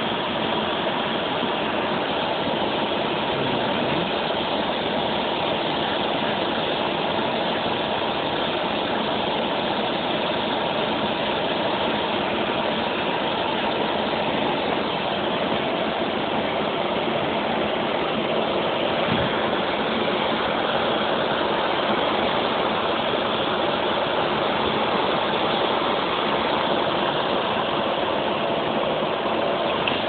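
Vacuum cleaner running steadily, sucking dust out of a laptop's clogged cooling vent.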